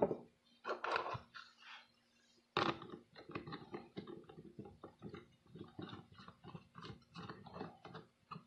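Hand handling a plastic trigger-spray bottle filled with liquid: a run of light, irregular clicks and crackles of fingers gripping and turning the plastic, with a sharper knock at the start.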